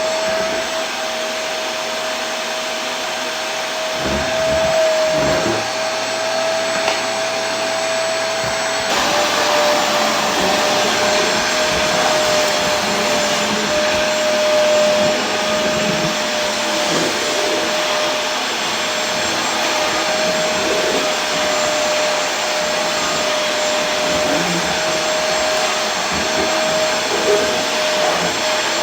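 Vacuum cleaner running steadily: an even rushing noise with a constant whine, which steps slightly lower in pitch about nine seconds in.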